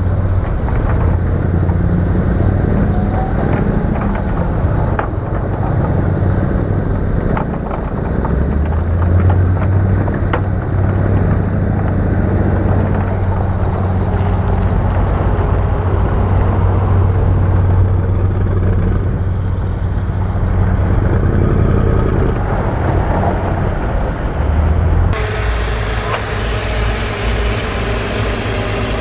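Heavy diesel engine of earthmoving machinery running steadily with a deep hum, with scattered knocks and clanks. The sound changes abruptly near the end.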